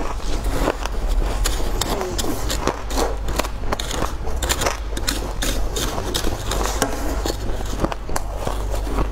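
Close-miked crackling and clicking from handling and eating food, with a few brief squeaks, over a steady low hum.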